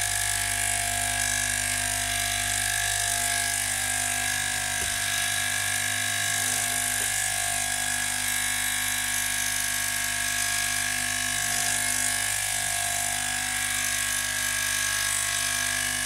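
Nespresso Inissia capsule machine's pump running through a short-coffee brew cycle, a steady even hum with unchanging tones throughout.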